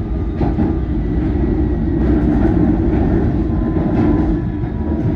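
London Underground S7 Stock train running and slowing down: a steady rumble of wheels and running gear, with a faint electric motor whine that falls in pitch as it brakes.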